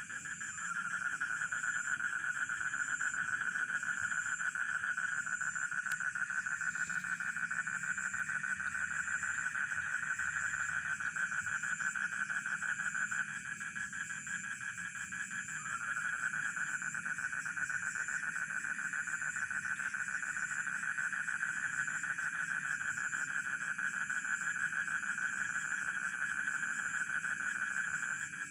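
Rice-field frogs calling in a dense, fast-pulsing trill, with crickets chirping steadily in a higher, pulsing tone over them. The frog trill breaks off about 13 seconds in and starts again a couple of seconds later.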